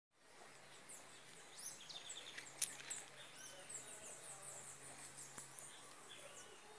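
Small birds chirping, many short high calls overlapping throughout, with a single sharp click about two and a half seconds in.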